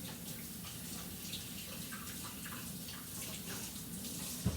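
Water running from a sink tap as hands are rinsed under it, a steady hiss that stops with a short knock near the end.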